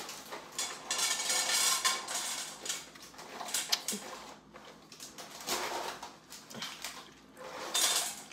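Dishes and cutlery clinking and scraping in irregular bursts of clatter.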